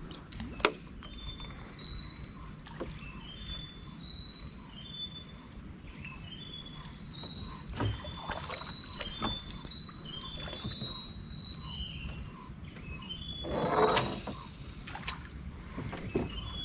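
Birds calling in a run of short, rising whistled notes over a steady high whine, with scattered light knocks on the small boat. There is a louder scuffing knock about fourteen seconds in.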